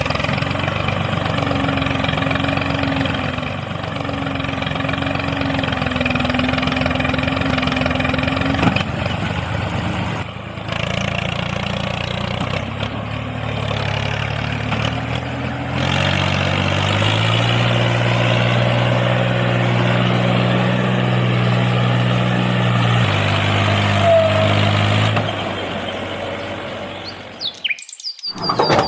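Mini tractor's engine running steadily, its note shifting up and down in steps a few times, then dying away near the end.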